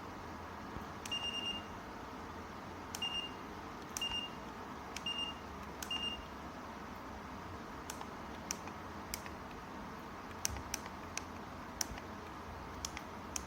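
Ceramic fan heater's control beeper: five short high beeps about a second apart, each starting with a click, the first one longer. Then a run of bare clicks with no beeps, over a steady hiss.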